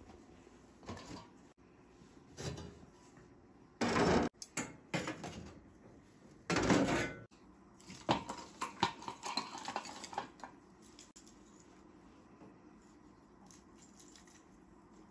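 Two loud clatters of a steel basin of split firewood being set down and shifted, then a run of lighter knocks as wooden sticks are picked out of the basin; quiet for the last few seconds.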